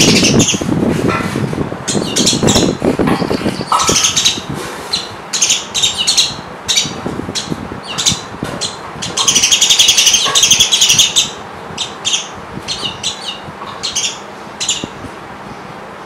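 House sparrows chirping: a quick series of short, sharp chirps, with a dense burst of continuous chattering about nine to eleven seconds in.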